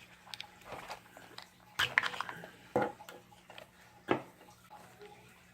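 Small plastic clicks and rustles of hands working on an RC truck's servo and its plug, with a few sharp clicks about two, three and four seconds in, over a faint steady hum.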